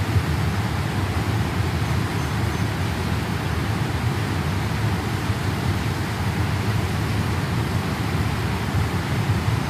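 Fast-flowing flash floodwater rushing, a steady heavy noise weighted to the low end.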